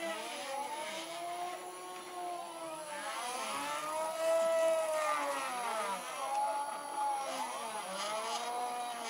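Stepper motors of a Zen Toolworks CNC router whining as the machine drives a pen around a spiral path. The pitch rises and falls in overlapping arcs, each a second or two long, as the axes speed up and slow down around each loop. The arcs grow shorter near the end.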